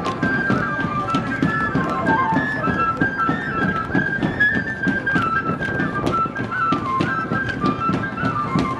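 Traditional Andean dance music: a high flute melody moving in quick steps over a steady, evenly repeating drum beat.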